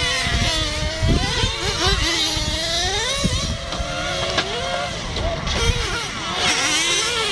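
Engines revving, several at once, their pitch rising and falling, over a low rumble.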